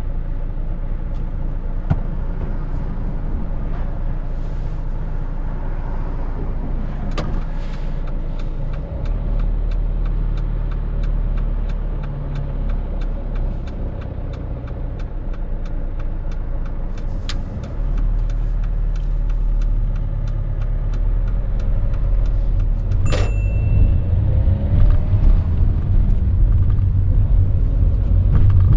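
Interior noise of a car being driven: steady engine and road rumble that grows louder over the last third. Through the middle there is a run of evenly spaced light ticks, about three a second, and one sharp click with a short high beep near the end.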